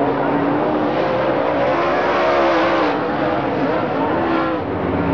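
Several engines running at shifting speeds, their pitches wavering up and down over a steady rush of noise.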